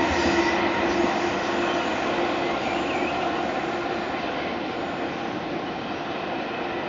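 Electric passenger train running past on the line and moving away, its rumble with a steady tone in it fading gradually.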